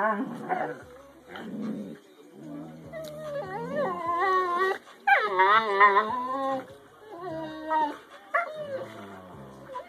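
Two huskies play-fighting, with growls and long, wavering, whining howl-like calls that rise and fall in pitch. The calls are loudest around the middle.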